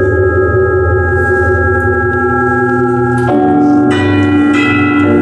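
Live electronic music: layered, sustained bell-like drone tones. A new set of pitches strikes in about three seconds in and twice more over the next second and a half, each ringing on over the held drone.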